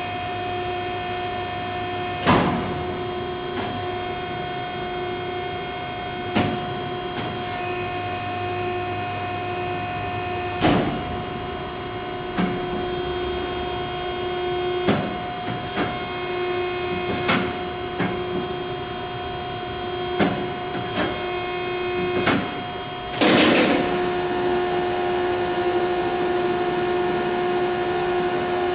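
Fully hydraulic DAVI four-roll plate bending machine running with no plate: a steady hum and whine from its drive. Sharp knocks come every few seconds, with a longer, louder rattle about 23 seconds in.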